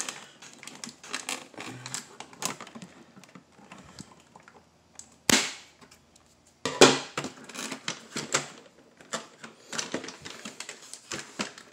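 Plastic toy playset and its packaging handled by hand as the ties holding the bridge are worked free: irregular clicks and rattles of hard plastic, with two louder bursts of handling noise about five and seven seconds in.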